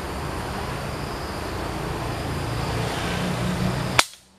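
A steady hiss with a low hum, then a single sharp rifle shot about four seconds in, after which the background noise cuts off abruptly.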